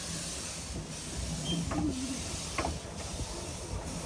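1913 American steam locomotive pulling away slowly, its exhaust steam hissing in a beat of about one chuff a second, with a low rumble and a few knocks from the train.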